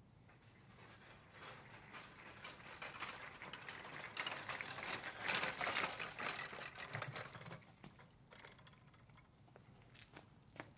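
Rapid, dense clicking and rattling that swells to its loudest about halfway through, then fades away.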